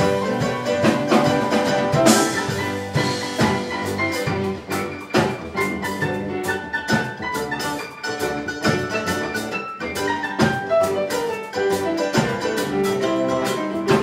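Live band playing an instrumental passage: a mandolin picking a bright melody over a guitar and a drum kit keeping a steady beat.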